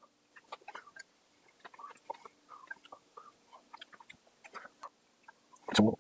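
Close-miked eating of mulhoe (cold raw fish soup with seafood): soft wet chewing, with small clicks of wooden chopsticks picking through the bowl and plate. A short, much louder knock comes near the end.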